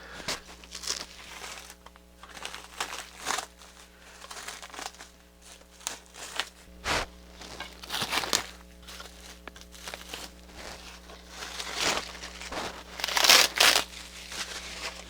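Irregular crinkling, rustling and small knocks of parts and packaging being handled on a workbench, over a steady low hum.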